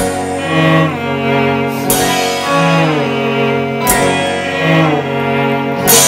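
A small band's instrumental intro: a bowed cello holding sustained notes over guitars, with a sharp drum hit about every two seconds.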